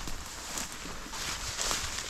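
Footsteps moving through leaf litter and brush, a loose run of small, irregular crackles and rustles.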